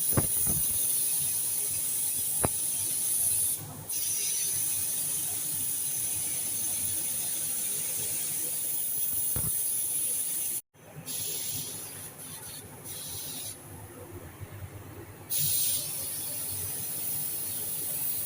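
Paint spray gun hissing as it sprays the car fenders, a steady high hiss that stops briefly a few times and is much weaker for a few seconds in the second half before coming back.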